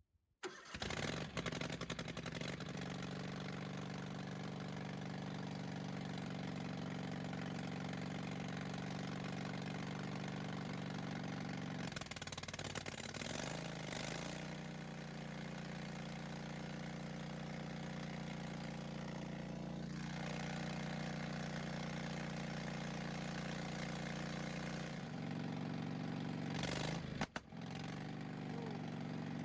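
Replacement gasoline engine on a Wood-Mizer LT15 sawmill running without a muffler, a loud, raw exhaust note. It runs steadily, its speed shifting for a couple of seconds about 12 seconds in, with a brief dropout near the end.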